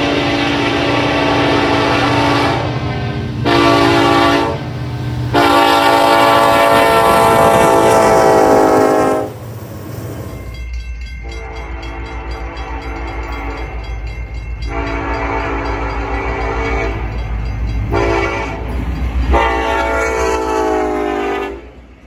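Nathan Raised Letter K5LLA five-chime locomotive horn sounding a series of long and short blasts at grade crossings, a loud musical chord. It comes as two recordings joined about halfway, the second with the low rumble of the approaching train beneath the horn.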